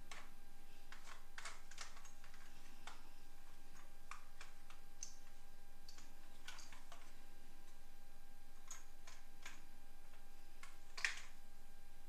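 Light, irregular clicks and taps of a plastic toy police car being handled and turned over in the hands, with one sharper click near the end.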